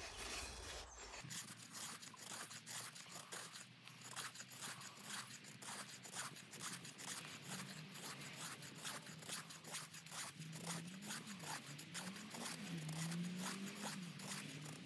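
Knife blade shaving thin curls off a sycamore stick to make feather sticks: repeated short scraping strokes of steel on damp wood.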